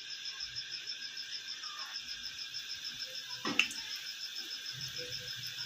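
Hot cooking oil sizzling and bubbling in a steel pan as balls of gulab jamun dough fry; about three and a half seconds in, another ball goes in with a short splash and a louder burst of sizzle. A steady fast chirping, about five pulses a second, runs underneath.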